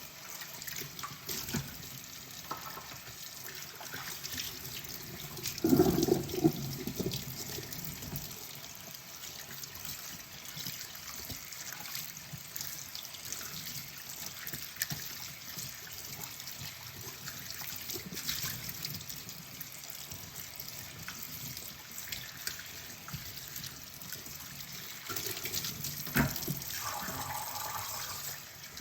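Kitchen tap running into the sink while dishes are washed by hand, with scattered small clinks of tableware. There is a louder clatter about six seconds in and another sharp knock near the end.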